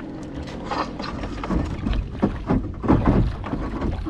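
Irregular knocks, rustles and water noise as a hooked bass is fought to the side of a bass boat, loudest around three seconds in, over a faint steady hum.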